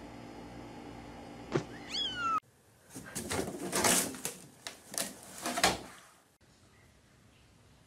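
A cat gives one short meow that rises and falls in pitch. After a hard cut comes about three seconds of scuffling and knocks as a cat scrambles in a laundry hamper and the lid drops shut.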